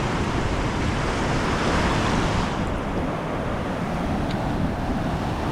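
Ocean surf washing against the shore with wind on the microphone: a steady rush of noise, which loses some of its hiss about halfway through.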